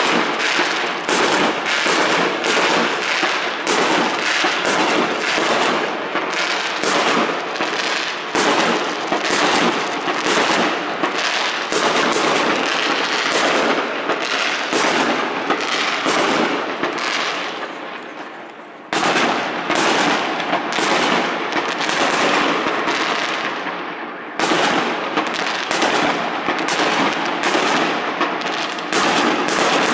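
A fireworks barrage: rapid, overlapping bangs and booms that run together like a thunderstorm. It fades briefly about eighteen seconds in, then starts again abruptly.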